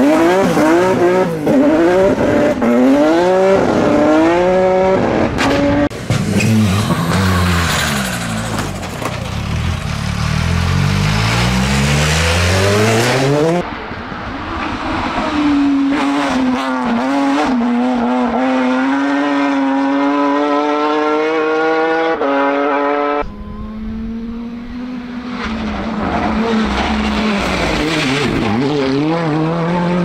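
Rally cars driven flat out on a stage: engines rev up and drop back through repeated gear changes. The sound changes abruptly about halfway through and again near three quarters, as one car gives way to another.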